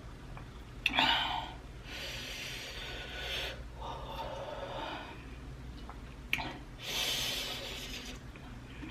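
A person drawing sharp, noisy breaths and sniffs through the nose and mouth, several in a row, from the burn of very spicy food.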